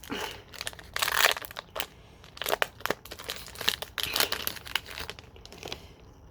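Foil wrapper of a Pokémon trading card booster pack crinkling as it is torn open and pulled apart, in irregular bursts that are loudest in the first half and thin out near the end.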